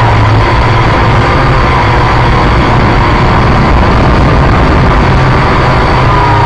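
Quadcopter electric motors and propellers running in flight: a loud, steady buzz with a high whine that wavers slightly in pitch.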